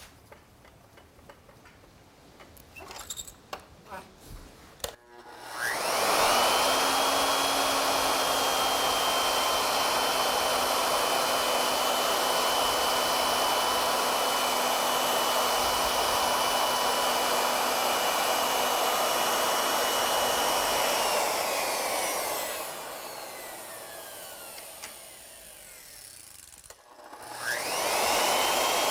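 Wood router fitted with a surface planing bit, machining the end of a wooden part square: a few handling clicks, then the router starts about five seconds in and runs steadily as it cuts. Past the middle it is switched off and its whine falls away, then it starts up again near the end.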